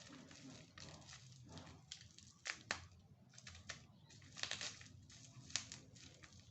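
Plastic parts of a bicycle child seat being handled while it is fitted: rustling and crinkling, with a few sharp clicks and knocks.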